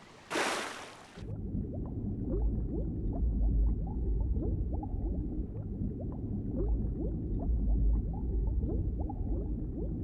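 A short splash of someone jumping into water, then a muffled underwater rumble with many small rising bubble blips: a cartoon underwater sound effect.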